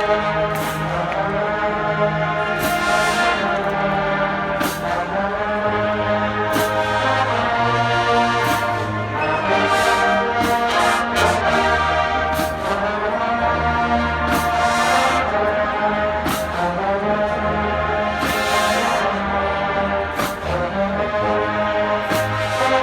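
Marching band brass playing loud held chords over a moving low brass bass line, with cymbal crashes every second or two.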